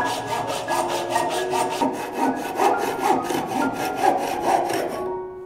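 A metal-framed hand saw cutting through a thin, dry tree branch in quick, even back-and-forth strokes. The sawing stops about five seconds in.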